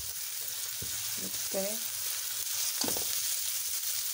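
Chopped onion sizzling in hot oil in a steel pan, a steady hiss, while a metal spatula stirs it and knocks against the pan twice.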